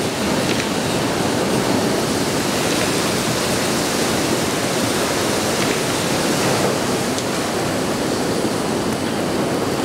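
Large areas of matchsticks fixed to a wall burning in tall flames: a steady rushing fire noise with a few faint crackles.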